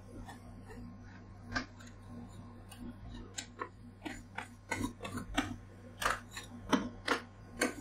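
Two metal spatulas tapping and scraping on a frozen steel ice-cream roll plate as a thin sheet of blueberry ice cream is pressed flat and squared off. Sharp clicks, sparse at first and quicker in the second half, over a low steady hum.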